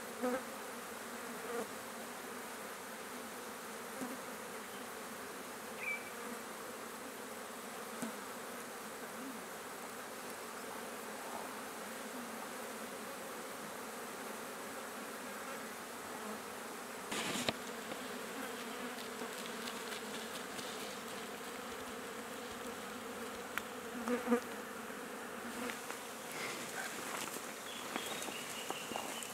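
Flies buzzing steadily around a carcass, with a few brief louder noises, one about two-thirds of the way through.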